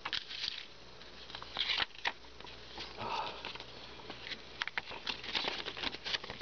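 Pages of a small paper instruction booklet being turned and handled: dry paper rustling with many small irregular clicks and taps.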